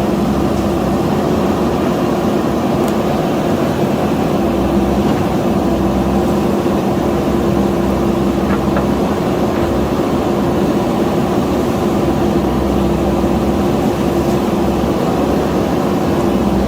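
JCB backhoe loader's diesel engine running steadily with a low rumble.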